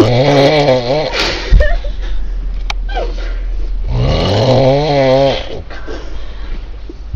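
A person snoring loudly: two long, fluttering, rattling snores about four seconds apart, each lasting about a second and a half. A short sharp thump comes about a second and a half in.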